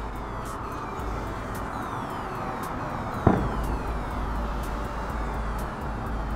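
A distant aerial firework shell bursting once with a sharp boom about three seconds in, over a steady background rumble.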